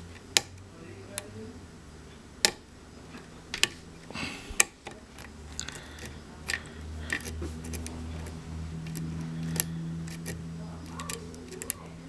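Lock picking in a pin-tumbler cylinder with serrated security pins and strong springs: irregular sharp clicks and ticks from the hook pick and pins, a dozen or so spread unevenly, over a faint low hum.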